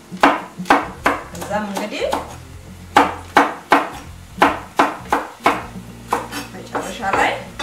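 Chef's knife slicing a green chili pepper into rings on a wooden cutting board: uneven knocks of the blade on the board, about two or three a second.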